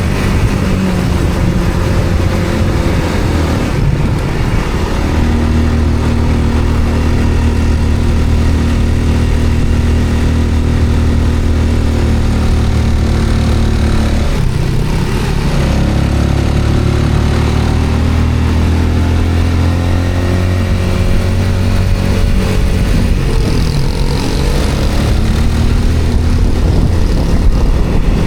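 A road vehicle's engine running while under way, its pitch sliding down to a low point about halfway through and then climbing again as it picks up speed.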